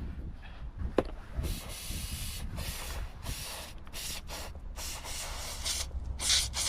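Scrubbing and rubbing noises on greasy, sludge-caked parts of a dismantled vehicle winch, in uneven strokes with a sharp click about a second in.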